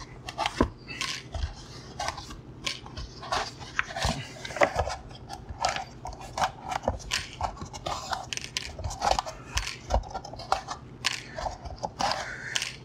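Hands handling an EPP foam flying wing and the steel straight pins pulled from it: a run of irregular small clicks and light metallic clinks of pins on a cutting mat, with foam rubbing as the wing is turned over and pressed.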